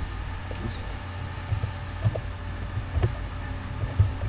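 Keyboard typing: single keystrokes at an uneven pace, about one every half second to a second, over a steady low hum.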